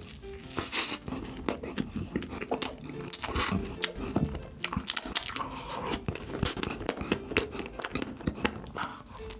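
Close-up sounds of someone biting and chewing chocolate: a run of crunchy bites and sharp clicks amid steady chewing.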